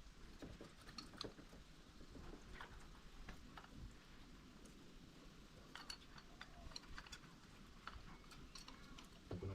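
Near silence: faint room tone with scattered small clicks and taps.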